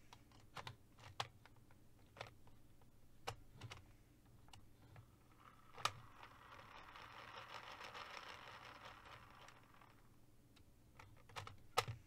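Scattered clicks of hard plastic toy parts being handled, then, about six seconds in, a faint whir lasting about four seconds as the shuriken on a DX Ninja Raise Buckle is spun.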